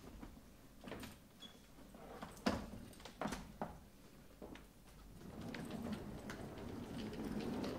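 A few sharp knocks and footsteps on a stage floor as people move about in the dark, followed by a low rustling noise that swells over the last few seconds.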